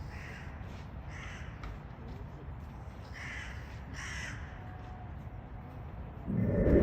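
Crows cawing, about four short caws in two pairs, over a steady low rumble. A louder, low-pitched burst of sound comes near the end.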